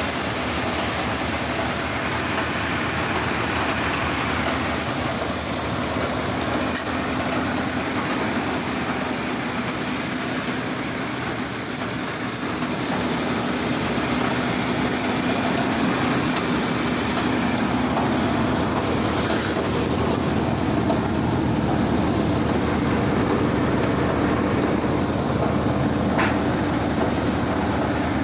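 Tractor-driven rice thresher running steadily: a continuous mechanical din of the spinning threshing drum and the tractor's engine, with grain and straw passing through.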